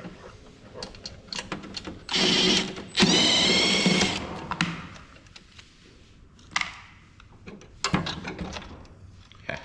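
Power drill driving screws out of a thermal printer's case: two bursts of motor whine about two and three seconds in, each about a second long, and a shorter one near the end, with small clicks of screws and parts being handled between them.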